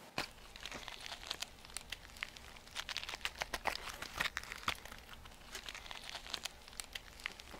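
A dry-erase marker scratching across a whiteboard in many short, irregular strokes as a line drawing is redrawn.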